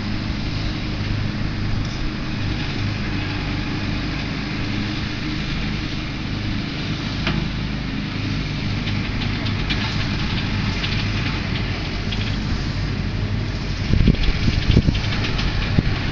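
A steady low mechanical hum with an even pitch. About fourteen seconds in it is overlaid by louder, irregular low rumbling for a second or two.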